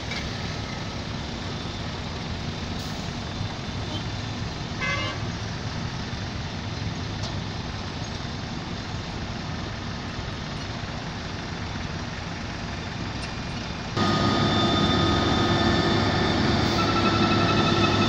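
Diesel engines of road-building machinery and traffic running steadily, with a short vehicle horn toot about five seconds in. Near the end the sound cuts suddenly to a louder, closer engine with steady pitched tones over it.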